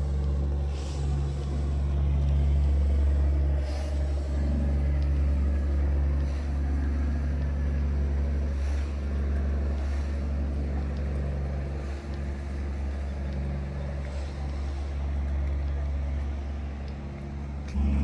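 An engine running steadily at low revs: a deep, even drone that swells a little and eases off now and then.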